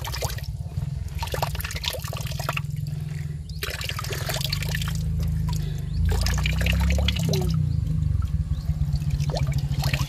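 Spring water trickling and splashing, over a steady low rumble that grows louder about six seconds in.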